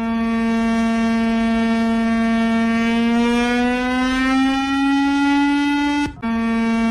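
Emergency-alert tone from a fake emergency broadcast: a steady, buzzy low tone with many overtones that slowly rises in pitch through the middle. It cuts out briefly near the end and resumes at its lower pitch.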